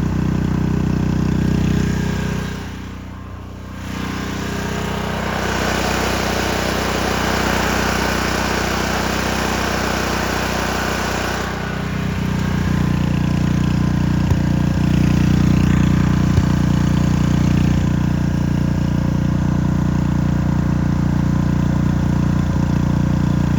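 Gasoline engine of an engine-driven welder running steadily. It drops off briefly about three seconds in, then its note changes and settles into a louder steady run in the second half. Its low idle won't run right after a carburettor rebuild, which the owner puts down to either the governor or the carb.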